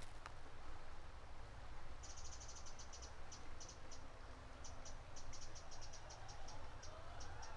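Crickets chirping in short, irregular high trills that start about two seconds in, over a low steady rumble.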